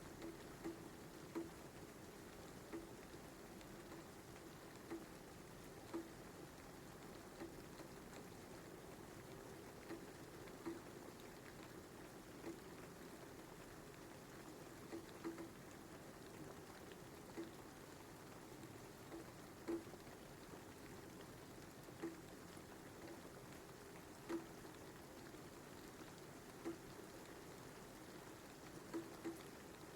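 Light rain: a faint steady hiss with single drops landing every second or two, the drops standing out above the hiss.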